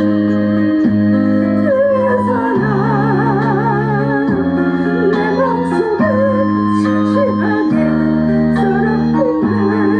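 Gospel praise song music: held keyboard chords that change every second or two under a melody line with heavy vibrato.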